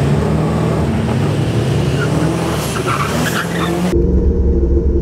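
Turbocharged V8 engine of a drag-prepared Toyota Supra running at the start line with uneven, crackling revs. About four seconds in, the sound cuts to a deeper, steadier engine note heard from inside a car's cabin.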